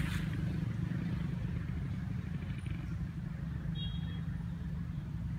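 Steady low hum of an engine running, with one brief high chirp a little before the end.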